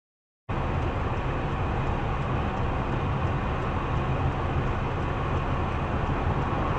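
Steady rumble of a moving car's engine and road noise picked up by a dashcam, starting abruptly about half a second in.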